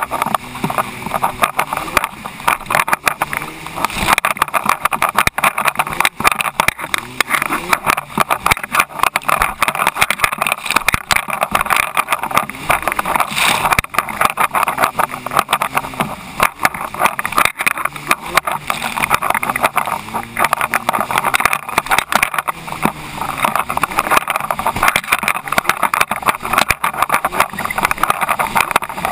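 Stand-up jet ski running at speed, its engine pitch rising and falling, with water spray and the hull slapping on the chop.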